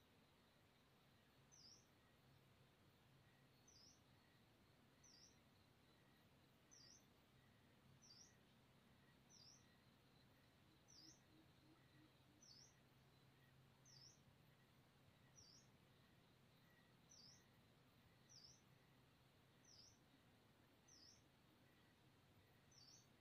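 Faint, high, short bird chirp that dips and then rises in pitch, repeated steadily about every second and a half.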